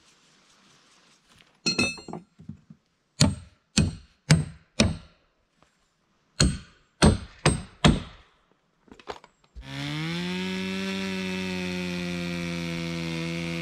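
About a dozen sharp hammer blows on wood with a metallic ring, coming in two groups. Then, near the end, a small motor starts up, rises briefly in pitch and runs steadily.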